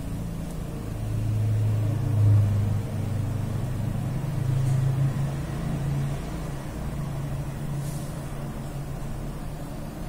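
Low, steady engine-like rumble that swells and dips a little, loudest about two seconds in.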